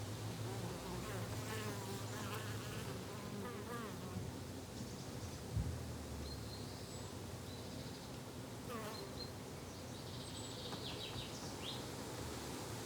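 Flying insects buzzing, the drone wavering and gliding up and down in pitch as they pass. Faint high bird chirps come near the end, and a single low thump sounds about halfway through.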